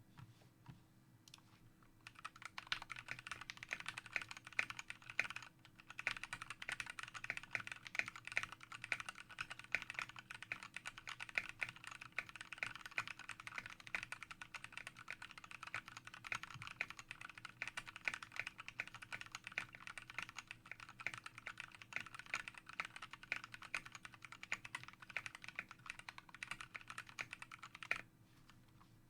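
Fast, continuous typing on a custom 60% mechanical keyboard with an aluminium Tofu case and plate, lubed linear-style Gateron SMD switches and ABS keycaps. It starts about two seconds in, pauses briefly, and stops about a second before the end.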